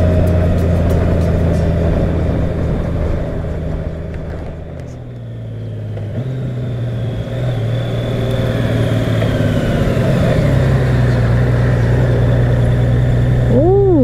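Honda Gold Wing's flat-six engine running as the motorcycle rides along. It eases off and goes quieter about five seconds in, then picks up again, its pitch stepping up twice. A short voice-like exclamation comes near the end.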